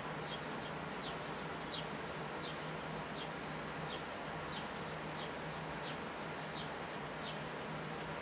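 A sparrow chirping, one short high chirp about every two-thirds of a second, over a steady background hiss with a faint low hum.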